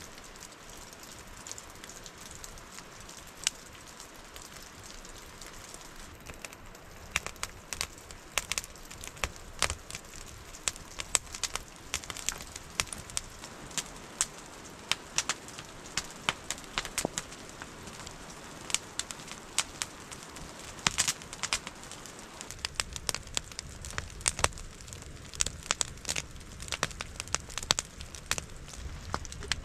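Wood fire crackling, with sharp pops that come thicker after the first several seconds, over a steady hiss of rain.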